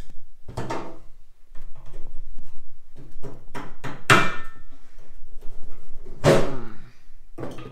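Metal knocks and clanks as a front mower's drive shaft is fitted back into its housing, one clank about four seconds in ringing briefly, and a heavy thunk after about six seconds.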